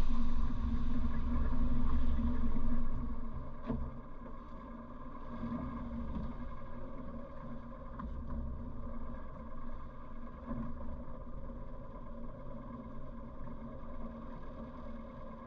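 A 1957 Morris Minor's A-series four-cylinder engine heard from inside the cabin. It runs loud at first, then drops to a lower steady hum about three seconds in as the car slows to a crawl for manoeuvring. A single sharp click comes shortly after the drop.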